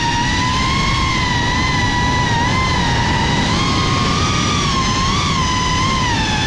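GEPRC CineLog35 FPV quadcopter's brushless motors and propellers whining, heard up close from the onboard camera: a high whine with several overtones whose pitch wavers up and down with throttle, rising briefly a little past halfway, over a low rushing noise.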